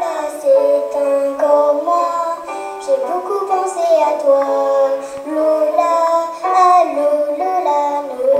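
A young girl singing a song into a microphone, moving from note to note with some long held notes.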